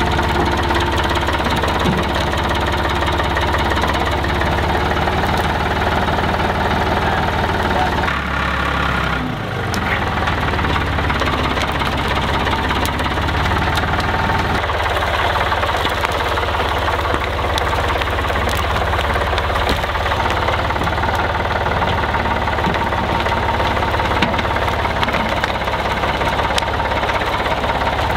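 Ford 7410 farm tractor's diesel engine running steadily under load as its front loader pushes brush onto a burning pile. The engine note dips and changes briefly about nine seconds in.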